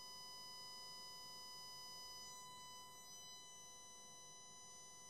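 A steady 1 kHz sine-wave test tone with a ladder of overtones, heard faintly from a Roberts RM40 transistor radio's loudspeaker. The radio is at full volume, fed from a signal generator and driven to clipping for the output stage's dynamic balance adjustment.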